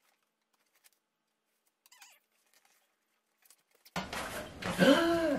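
Near silence for about four seconds, then a sudden rush of cardboard rustling as the flaps of a shipping box are pulled open, with a brief vocal sound just after.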